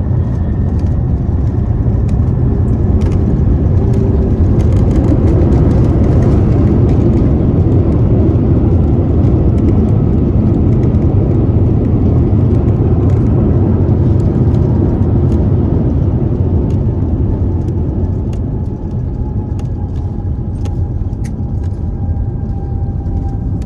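Cabin noise inside an Airbus A350-941 during landing: a loud, steady low rumble of its Rolls-Royce Trent XWB engines and rushing air, with scattered light rattling ticks. In the second half a thin whine slowly falls in pitch and the rumble eases a little.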